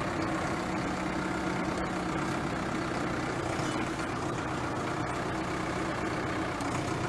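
Solis 90 HP tractor's diesel engine running steadily while its front loader and bale clamp lower a wrapped bale.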